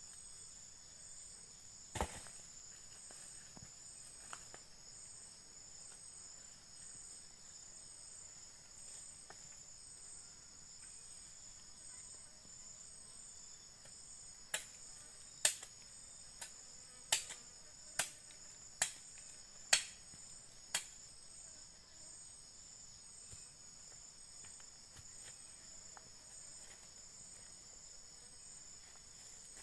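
A steady high-pitched chorus of insects, one voice pulsing in a fast even trill. Sharp knocks or snaps cut across it: one about two seconds in, then a run of about eight, roughly one a second, around the middle.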